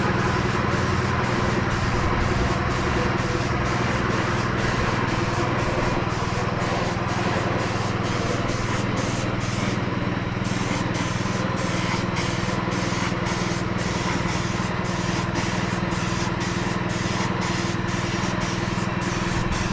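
Steady hiss of a compressed-air paint spray gun over a constant low machine hum, with faint regular ticking about twice a second.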